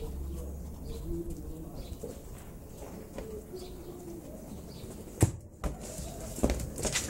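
One sharp, loud thud of a ball being kicked about five seconds in, followed by a few lighter thumps as the ball bounces and a Labrador leaps for it.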